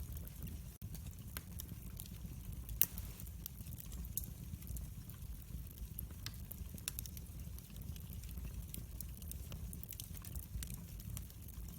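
Fire in a fireplace crackling: scattered pops and snaps over a low steady rumble, with one louder pop about three seconds in.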